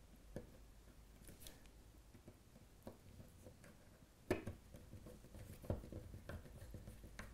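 Small screwdriver driving a track screw through a model railway point's sleeper into a wooden baseboard: faint scraping clicks, with a sharper knock about four seconds in and another near six.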